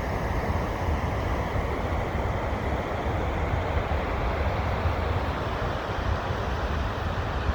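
Waterfall pouring into a river: a steady rush of falling water with a deep rumble underneath.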